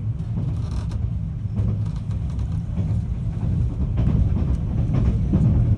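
Running noise heard inside a 521 series electric multiple unit: a steady low rumble of wheels on rail, with a few faint clicks and a slight swell in level about four seconds in.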